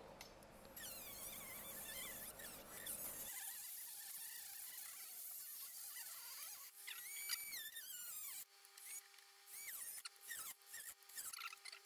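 Faint metal squeaks as the brass lid stay (compass) of a trunk is worked by hand with a tap wrench. From about the middle on, a small cordless screwdriver runs with a thin steady whine as the stay is fixed to the lid, with a few sharp squeaks and light clicks.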